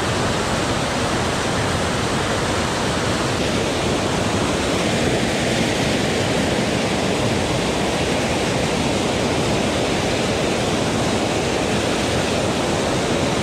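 Waterfall pouring into a pool, its whitewater rushing loudly and steadily.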